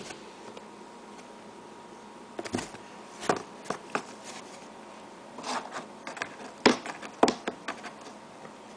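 A cat playing inside a cardboard box: scattered rustles, scrapes and knocks of cardboard as it moves and bats at the sides, a few sharper knocks near the end.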